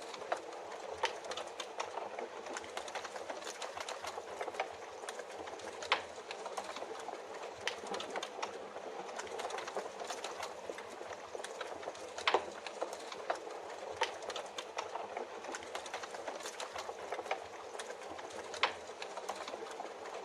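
Wood fire crackling in a fireplace, with scattered sharp pops, over a steady hiss of rain.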